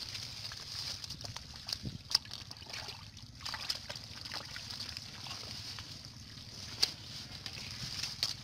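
Hands sloshing and squelching in shallow mud and water while tugging at water hyacinth plants, with a few sharp clicks or snaps, the loudest about two seconds in and near seven seconds. A steady high-pitched hiss runs underneath.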